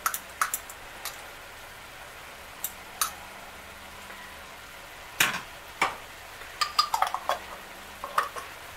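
Metal spoon and fork clinking and scraping against a glass jar and a metal pan as thick sauce is spooned out: scattered sharp taps with quiet gaps between.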